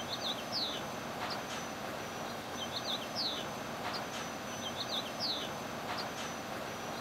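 A bird singing a short phrase of a few quick, high, falling chirps, repeated three times about two seconds apart, over a steady faint outdoor hiss.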